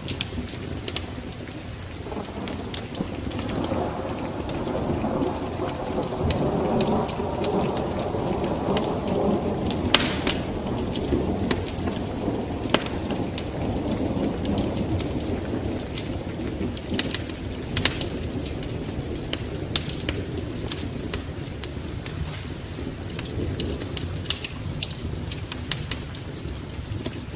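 Wood fire burning in a fireplace, crackling with frequent sharp pops over the steady rush of the flames.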